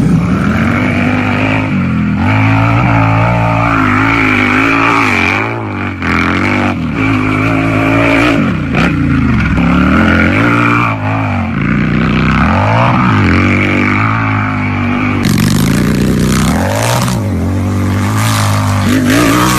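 Harley-Davidson V-twin motorcycle engine revving, its pitch climbing and dropping back again and again over a steady low rumble.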